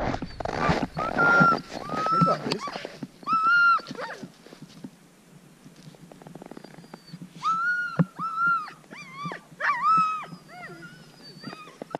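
Greenland sled dogs whining and yipping: a string of short, high-pitched calls, each rising and falling, in two clusters with a lull in the middle. Scuffing noise runs through the first few seconds.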